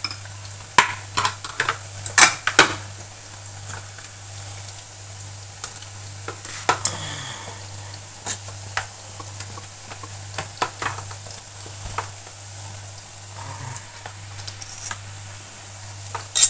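Metal serving utensils clinking and scraping against a metal roasting tray while roast duck is cut and served, a dense run of sharp clinks in the first few seconds, then scattered taps and scrapes.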